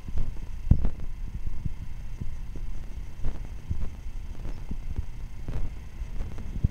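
Irregular low thumps over a steady low rumble from a handheld camera carried on a walk: the walker's footsteps and handling bumps, with the strongest bump about a second in.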